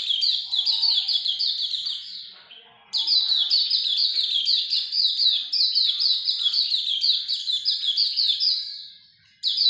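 Hume's white-eye (pleci auriventer) singing long, rapid chattering phrases of quickly repeated falling notes. The song breaks off twice, about 2 seconds in and near the end, and each time starts again after a short gap.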